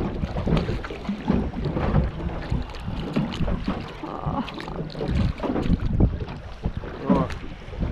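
Wind buffeting the microphone over water slapping against a small boat's hull, with scattered knocks and rustling.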